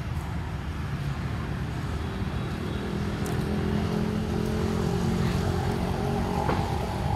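Motor vehicle engine running nearby, its hum swelling from about two seconds in and easing off near the end, over a steady low outdoor rumble.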